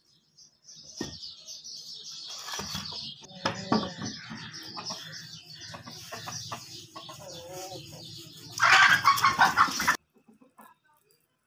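A rooster and hen clucking at close range, then a loud flurry of wing-flapping near the end that stops abruptly.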